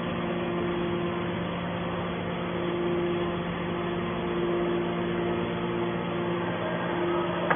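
Hydraulic can baler's motor and pump running with a steady hum, a higher tone cutting in and out every second or so.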